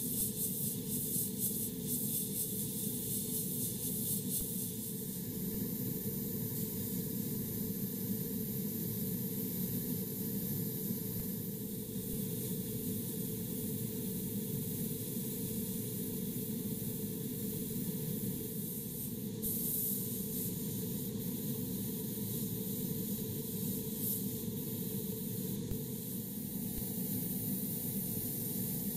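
Gravity-feed airbrush spraying paint and clear coat onto plastic model parts: a hiss that grows stronger and weaker as the trigger is worked, over a steady low hum.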